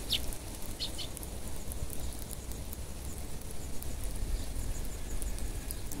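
Eurasian tree sparrows giving a few short chirps in the first second while the flock feeds on seed, over faint high ticking and a steady low background rumble.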